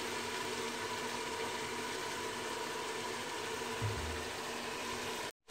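Steady, quiet hiss with a faint hum from beef cooking in a pressure cooker on a gas stove, with a short, soft low thump about four seconds in.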